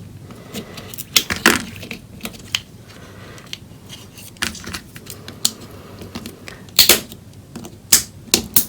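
Metal spudger prying apart the glued plastic shell of a Turtle Beach USB wireless transmitter: scattered small clicks and sharp plastic snaps, with loud ones about a second in, around seven seconds in and near the end.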